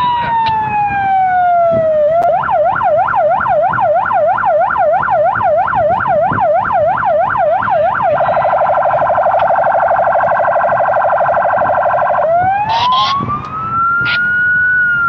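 Police patrol car's electronic siren cycling through its tones. A slow falling wail runs into a yelp of about four sweeps a second for some six seconds, then a much faster trill for about four seconds, then the wail rising again and starting to fall near the end.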